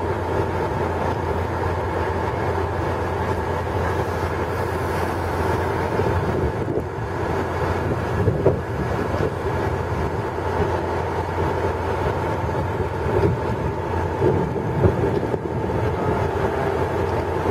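Passenger ferry's engine running with a steady drone as the boat cruises along the river, a low hum under a constant mid-pitched tone.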